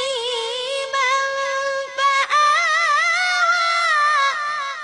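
A young boy's voice chanting Quran recitation, drawing the word 'yatīman' out into a long, wavering held note that fades near the end.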